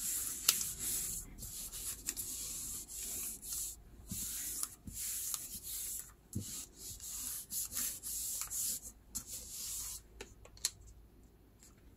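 Palms rubbing over a sheet of paper laid on an inked silicone tray: a run of repeated swishing strokes that stops about ten seconds in. The paper is being burnished onto the tray to lift the ink off as a print.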